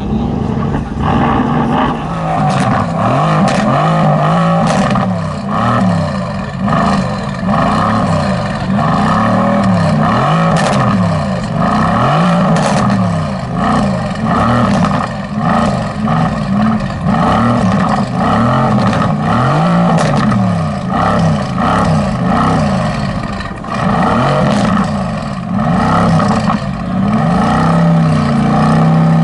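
Mercedes-AMG GT S twin-turbo V8 being revved over and over, the engine note climbing and dropping about once every second or two, with a few sharp cracks among the revs.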